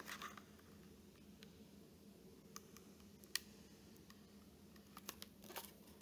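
Near silence: room tone with a faint steady hum and a few faint scattered clicks from a picture book being handled and held up to a webcam, with a small cluster of clicks near the end as it is lowered.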